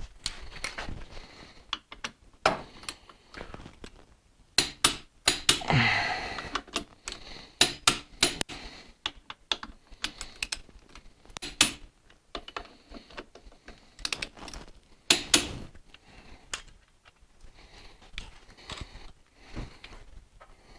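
Wrench and socket tools clicking and clacking on metal as the brake caliper bolts on a motorcycle fork are tightened: a string of irregular sharp clicks.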